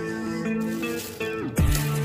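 Background music: a melodic passage, then about one and a half seconds in a deep falling bass sweep drops into a heavy, louder bass beat with sharp percussive ticks.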